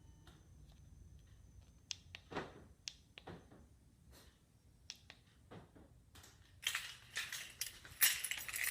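Scattered sharp clicks and taps over a faint hum, then about two seconds of dense crackling and rustling near the end.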